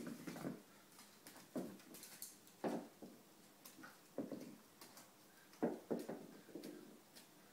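Border terrier excitedly playing with her toys: short grunting noises come in irregular bursts about every second, mixed with claws clicking and toys rustling on a wooden floor.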